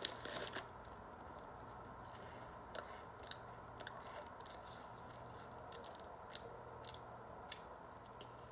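Quiet chewing of a puffy cookie, with a few scattered small clicks from the mouth. A brief crinkle of the plastic wrapper comes at the start.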